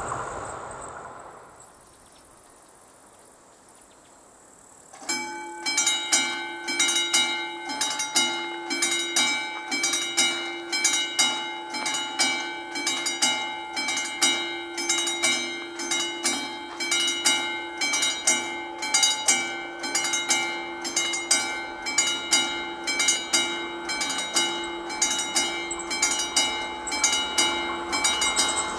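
Classic mechanical bell of a Czech VÚD level-crossing warning signal starts ringing about five seconds in. It is struck over and over in an even rhythm, each stroke ringing on, warning of an approaching train. Before that, the noise of a train that has just passed fades away.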